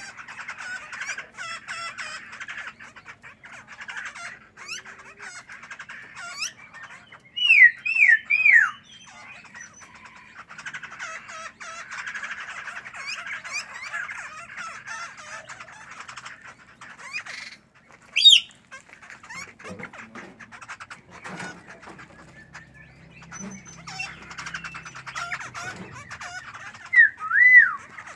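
Songbirds calling: steady busy twittering, broken by loud clear whistled notes that slide down in pitch, three in quick succession about eight seconds in, one more about halfway, and two near the end.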